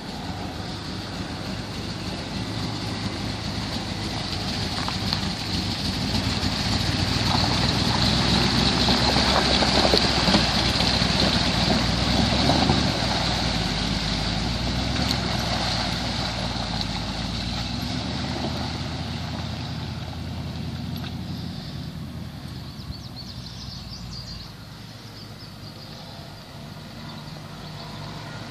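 A 1986 Jeep Grand Wagoneer's carbureted 360 V8 runs as it drives through a muddy water hole on a dirt trail. It grows louder as it approaches and passes, is loudest about ten seconds in, and then fades as it drives away.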